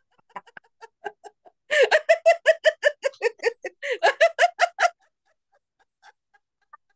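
A woman laughing on the vowel "a" ("ha-ha-ha"), a deliberate laughter-yoga laugh. A few faint laughs come first, then a loud rapid string of about six laughs a second from about two seconds in, which stops about five seconds in, leaving only faint breaths near the end.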